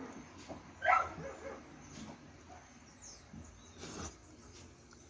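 A dog that keeps barking: one short, sharp bark about a second in, the loudest sound here.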